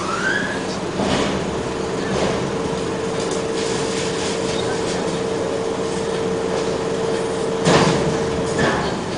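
Heavy machinery running with a steady low hum; a held whine starts about a second and a half in and stops near the end. A few knocks sound over it, the loudest near the end.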